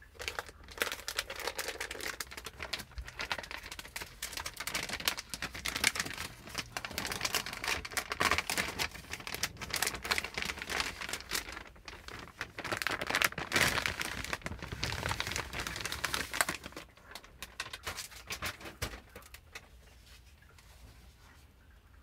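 Plastic anti-static bag crinkling and crackling as a motherboard is pulled out of it, a dense rustle that dies down near the end to a few faint rustles.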